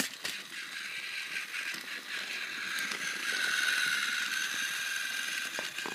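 Battery-powered Trackmaster toy engine's small electric motor and plastic gears whirring steadily, with light clicks, the pitch dipping slightly about midway.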